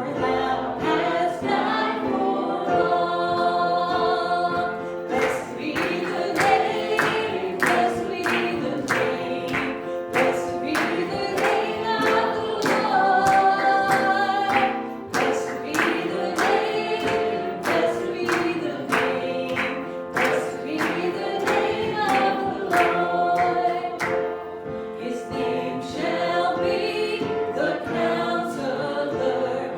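Church worship music: many voices singing a hymn together over instrumental accompaniment with a steady beat.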